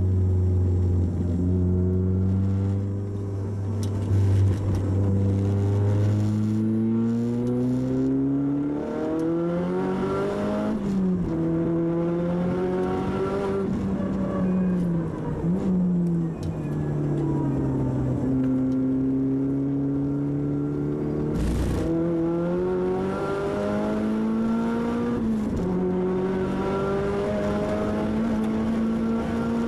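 Tuned, turbocharged Audi TT quattro engine with a Garrett GT30R turbo, heard inside the cabin as the car is driven hard on track: the pitch climbs under acceleration and drops back at each gear change and when slowing, several times over. A single short sharp crack comes about two-thirds of the way in.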